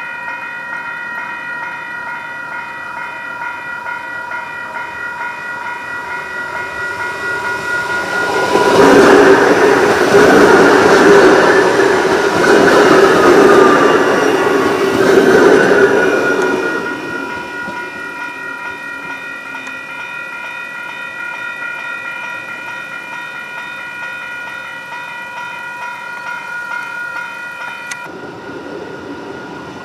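Adelaide Metro 4000 class electric multiple-unit train approaching and passing close by. Its running noise and wheels on the rails build over the first few seconds, are loudest from about 9 to 16 seconds in with a sliding whine, then fade as it moves away.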